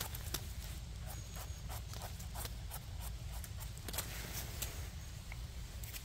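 Dry leaves and twigs on a forest floor crackling and rustling underfoot and under hand, in many irregular sharp clicks, over a low rumble.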